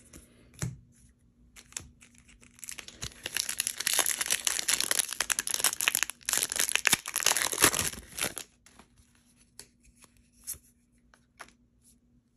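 A Magic: The Gathering draft booster's foil wrapper being torn open and crinkled by hand: about five seconds of dense crackling tearing that starts a few seconds in. Afterwards come only a few faint clicks as the cards are handled.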